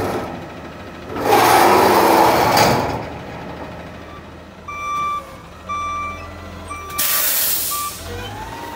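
CNG Peterbilt 520 front-loader garbage truck: a loud hiss of air from the brakes about a second in, then the backup alarm beeping about once a second, with a second hiss of air near the end, over the low hum of the engine idling.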